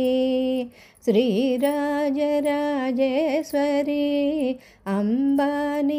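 A woman singing a Telugu devotional harathi song in a single voice, holding long, steady notes with short pauses between phrases.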